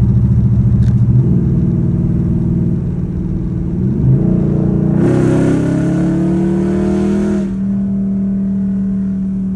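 Dodge Charger's 5.7 L Hemi V8 with a stage 2 cam, heard from inside the car while driving. It runs at a steady pitch, steps down about a second in, then picks up speed with rising pitch and a rushing noise for a couple of seconds before settling into a steady cruise.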